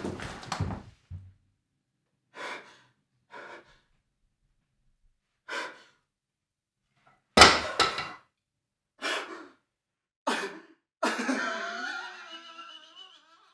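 A man's short breaths and gasps, spaced a second or two apart, with one loud thump about seven seconds in and a drawn-out wavering vocal sound near the end.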